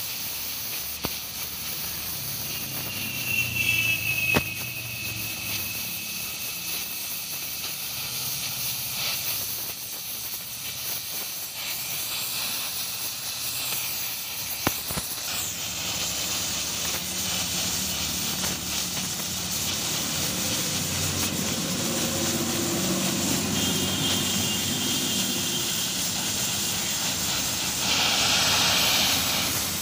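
Gas-welding torch flame hissing steadily as filler rod is run along a weld bead on a steel pipe, with a few sharp clicks. The hiss gets louder and fuller near the end.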